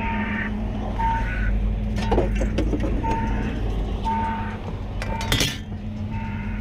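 A vehicle's backup alarm beeping about once a second over a steady low engine rumble, with harsher repeated sounds between the beeps and a sharp knock about five seconds in.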